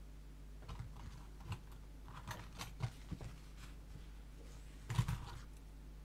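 Light, scattered clicks and taps of small metal lock-picking tools being handled while a wider tension tool is sought, with one louder knock about five seconds in.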